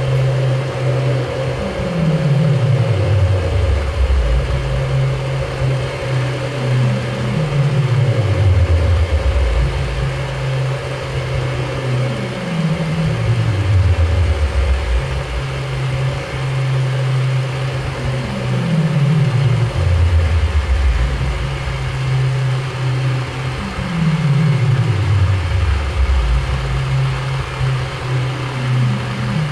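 Improvised experimental music. A low held tone alternates with slow falling pitch glides that come round about every five and a half seconds, over a steady higher drone.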